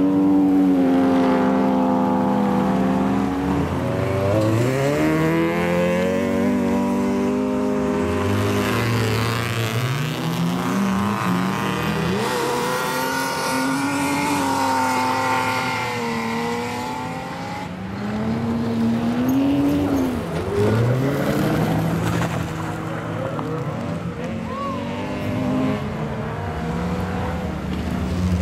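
Rallycross cars racing, several engines revving hard, their pitch climbing and dropping again and again through gear changes and corners.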